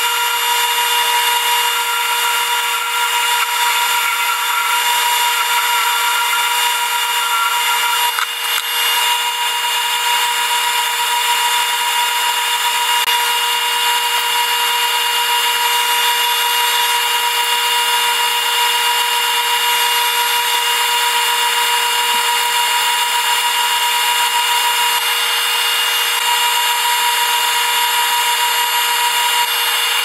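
Wood lathe and dust collector running steadily, a constant whine over a rushing hiss of air, with a brief dip about eight seconds in.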